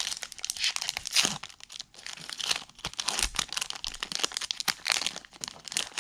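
Foil wrapper of a hockey card pack being torn open and crinkled by hand, a run of irregular crackles and short rips.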